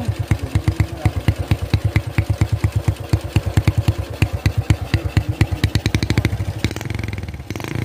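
Motorcycle exhaust through a used Honda Super Cub muffler that has been cut open and rewelded to give a 'kleper' note like a Honda GL100's. At idle it gives a loud, even popping beat of about nine pulses a second. Near the end the beats run together into a steadier sound.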